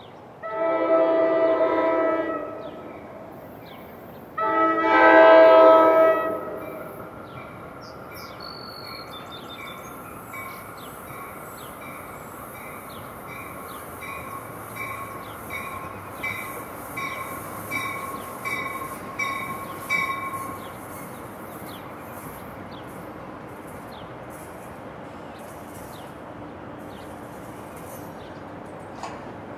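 NJ Transit Comet V cab car's K5LA horn sounding two long blasts in the first few seconds. Its bell then rings steadily for about ten seconds while the train rumbles into the station.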